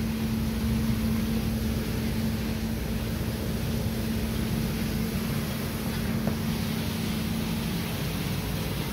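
Coffee roaster running: a steady rushing noise with a low, even hum, and the hum drops away near the end.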